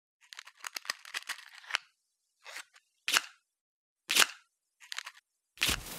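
Sharp mechanical clicks: a quick run of about a dozen in the first second and a half, then single clicks roughly a second apart, the last one near the end louder and with a deeper thud to it.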